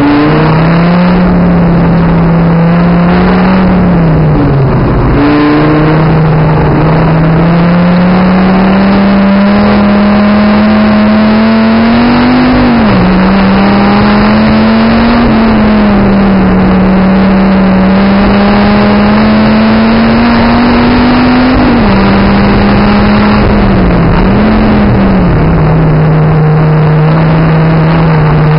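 Dodge Viper ACR's 8.4-litre V10 at full track pace, loud and continuous. Its pitch climbs slowly through each gear and drops sharply at shifts and lifts: about four seconds in, near the middle, and twice near the end.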